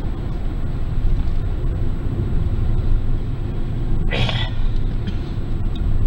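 Steady low rumble of a car driving along the road, heard from inside the cabin. A short burst of a voice comes about four seconds in.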